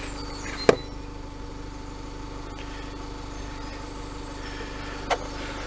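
Two sharp plastic clicks, a loud one just under a second in and a softer one near the end, from the van's fuse box being closed up after a new 60 amp fuse is fitted, over a steady engine-like hum.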